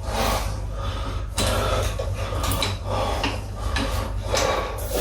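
Hand tools working on metal: a wrench turning bolts on a motorcycle's primary case, a series of short metallic scraping and clinking strokes about every half second to second.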